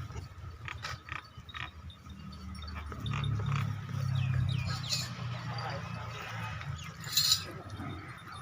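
Makhi Cheeni goats calling, with scattered short knocks over a steady low hum that swells for a couple of seconds midway.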